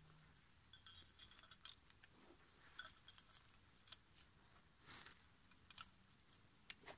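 Near silence with faint scattered ticks and crumbling sounds, about one a second: crumbled dry soil being sprinkled over a steel foothold trap, with a hen pecking at the ground close by.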